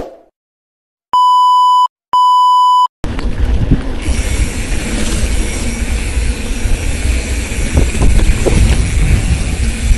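Two electronic beeps, each just under a second long, of one steady buzzy tone. About three seconds in, loud wind noise on the microphone takes over, a rushing rumble with a few faint clicks in it.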